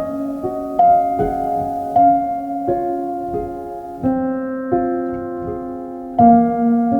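Soft, slow piano background music: single notes and chords struck about once or twice a second and left to ring.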